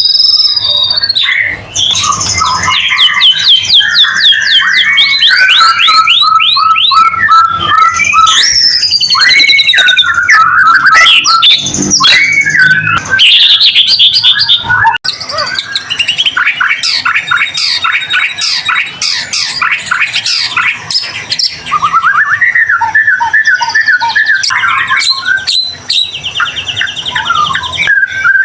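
White-rumped shama (murai batu) singing loudly and without pause: a varied song of clear whistles, rapid trills and chattering phrases, with a momentary break about halfway through.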